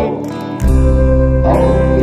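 Band music: guitar and bass playing sustained chords, the bass dropping out for a moment and coming back in about half a second in, with another chord struck near the end.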